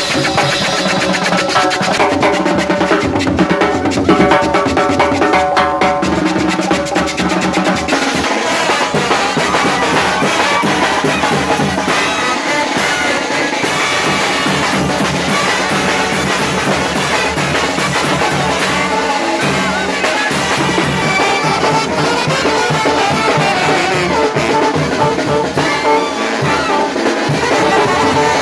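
Live Oaxacan brass band playing: trumpets and trombones over a drum kit with timbales, cowbells, cymbal and bass drum. It is loud and continuous, and the brass grows fuller about eight seconds in.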